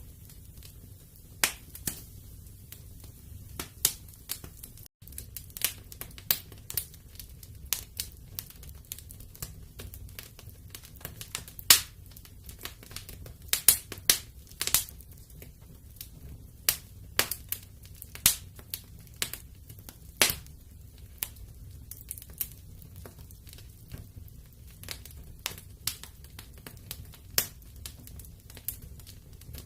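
Wood fire in a fireplace crackling: irregular sharp pops and snaps, some much louder than others, over a low steady rumble of the flames. A momentary gap in the sound about five seconds in.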